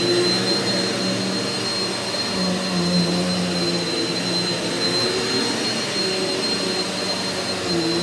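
Eureka NEU180B Power Speed bagless upright vacuum cleaner running steadily as it is pushed over carpet. Its motor and airflow make an even rush with a constant high-pitched whine on top.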